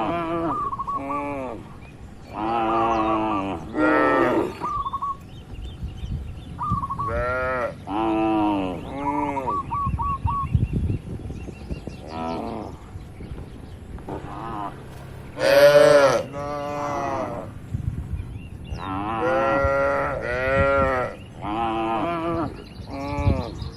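Many cows mooing, one call after another with short gaps, some overlapping. The loudest and highest-pitched moo comes about two-thirds of the way through.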